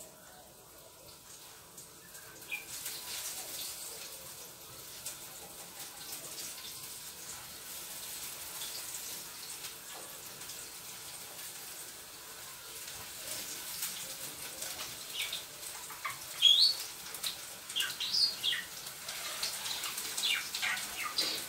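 Zucchini rounds dredged in flour sizzling in hot oil in a frying pan: a steady hiss starts a few seconds in and builds, and in the second half sharp spattering pops grow more frequent, the loudest a little past the middle.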